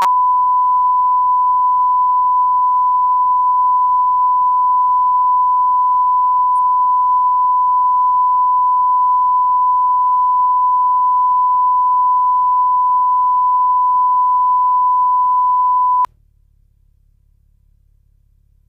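Bars-and-tone line-up signal: one steady, loud test tone that marks the reference audio level at the head of a tape. It cuts off suddenly about 16 seconds in, leaving a faint low hum.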